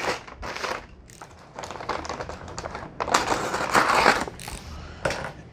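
Packaging material crinkling and rustling as a large parcel is handled and opened, with irregular crackles that grow louder about three seconds in.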